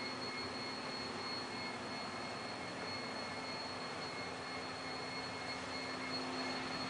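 Steady room tone: an even hiss with a faint constant low hum and a thin, high, unchanging whine.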